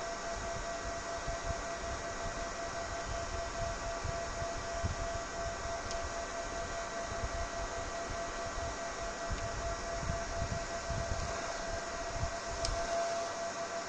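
A small 12 V, 6 W side-mounted ventilation fan for a van body running steadily: a constant motor whine with the hiss of moving air, over an uneven low rumble.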